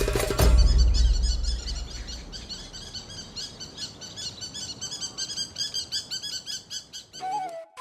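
Birds chirping: a dense run of rapid, short high chirps repeating for several seconds. Percussive music dies away just at the start, and a flute tune comes in near the end.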